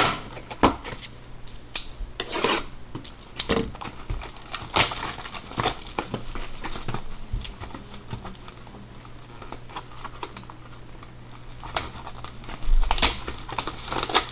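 Shrink-wrapped Bowman Chrome hobby card boxes being handled: plastic wrap and a clear plastic bag crinkling, with scattered clicks and taps of cardboard boxes set down and slid on the table, loudest about a second before the end.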